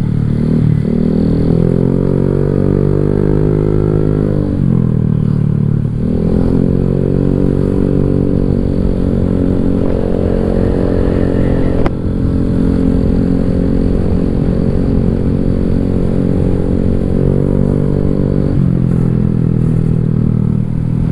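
Honda Vario 150 scooter's single-cylinder four-stroke engine breathing through a Black Devil R2 Seca long aftermarket exhaust while riding. The exhaust note rises and falls with the throttle, easing off about four seconds in and again near the end. There is a single sharp click about twelve seconds in.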